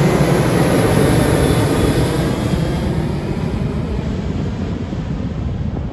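Jet airliner flying past, its engine noise loud at first and fading steadily as it moves away.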